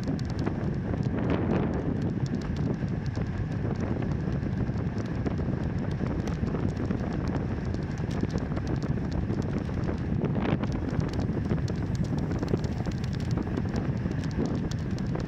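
Wind buffeting the microphone of a moving bicycle ride, with a steady low rumble and scattered light ticks throughout.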